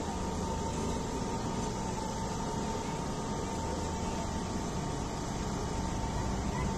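Diesel engines running steadily: a small diesel shunting locomotive moving slowly along the platform track beside a standing diesel railcar train, with a low rumble and a thin steady whine.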